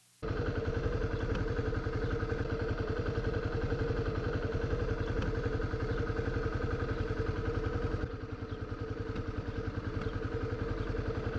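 Kawasaki KLX250SF supermoto's single-cylinder engine idling steadily, with an even, rapid firing pulse that drops slightly in level about eight seconds in.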